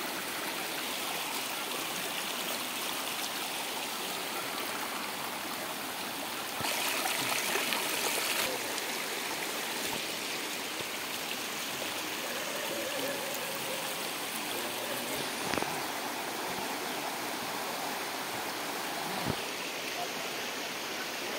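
Floodwater gushing through a gap in a sandbag-and-paver-block embankment: a steady rush of water, louder for a couple of seconds about seven seconds in.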